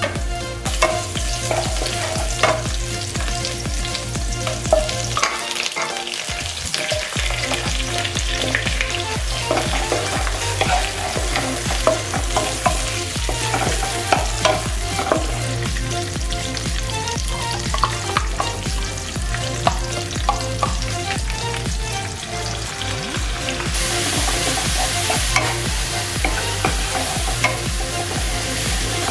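Chopped chili, garlic and shallots sizzling in hot oil in a wok while a wooden spatula stirs them, with light scrapes and knocks against the pan. The sizzle grows louder and brighter about three-quarters of the way through.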